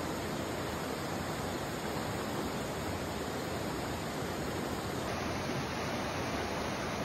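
Shallow river rushing steadily over a rocky riffle.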